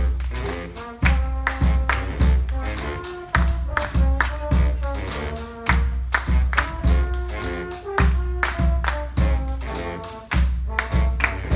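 Live brass-and-percussion band playing an up-tempo tune: held horn lines over a heavy pulsing bass and sharp, regular drum hits.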